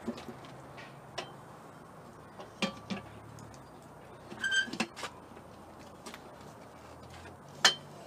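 A few scattered clinks and knocks from metal parts being handled, two of them with a short metallic ring; the sharpest comes near the end.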